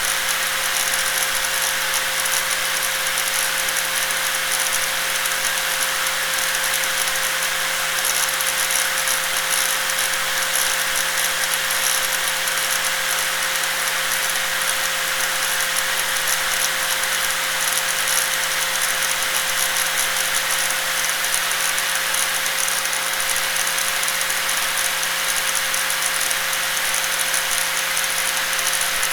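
Electric angle grinder running steadily without a break, a constant whining tone over a dense hiss.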